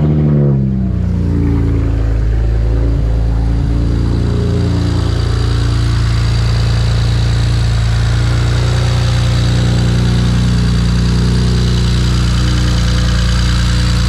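BMW 335i's N54 twin-turbo 3.0-litre straight-six just catching on start-up: its revs flare and fall back in the first second, then it settles into a steady idle. To the owner it is one of its smoother starts and seems better now, after the vacuum lines were rerouted to cure a rough idle.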